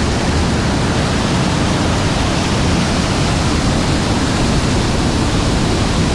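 Waterfall, close by: loud, steady, even rush of falling water.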